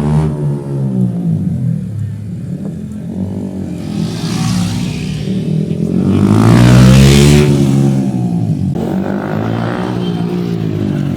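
Motorcycles riding past at speed, their engine pitch rising and falling with each pass. The loudest pass comes about six to seven seconds in.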